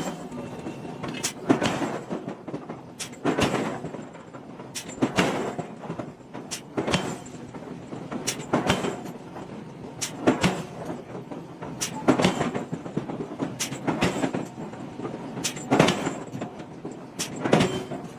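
Heavy forging blows on hot iron, landing regularly about every second and three-quarters, with lighter metallic clicks and taps between them.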